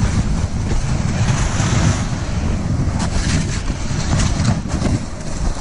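Wind buffeting the microphone, a steady low rumble, with a few short scraping crunches about three to four and a half seconds in.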